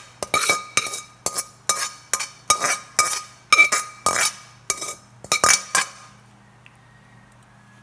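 A metal spoon scraping and knocking against a metal frying pan as the last of the sauce is emptied out, about two ringing clinks a second, stopping about six seconds in.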